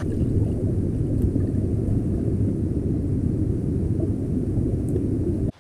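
Muffled, low rumble of swimming-pool water churning, heard underwater around a swimmer; it cuts off suddenly near the end.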